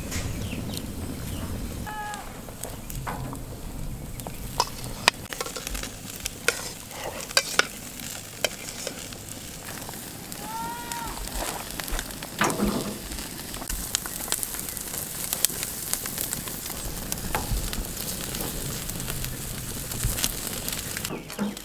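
Chicken pieces sizzling over a wood-and-charcoal fire on a grill: a steady hiss with scattered sharp pops and crackles.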